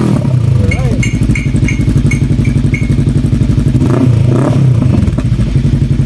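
Bristol Venturi 500 motorcycle idling steadily through an aftermarket Akrapovic M1 slip-on muffler, heard close to the exhaust outlet. A run of short high beeps sounds about a second in.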